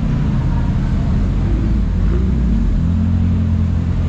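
Nissan sedan's engine and aftermarket exhaust rumbling as the car pulls away at low revs, the note rising slightly midway and growing louder near the end.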